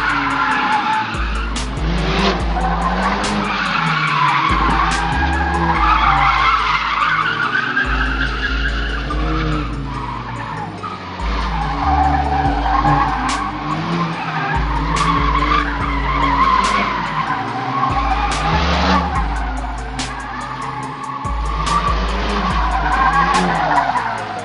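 Tyres squealing and drift-car engines revving up and down as Hyundai drift cars slide through tyre smoke; near the end two cars drift in tandem. Music with a heavy bass line plays under it.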